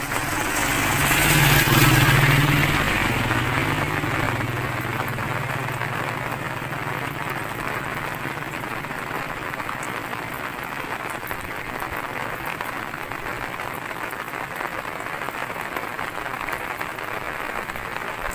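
Steady hiss of falling rain. A low hum rises over the first couple of seconds and fades out by about five seconds in.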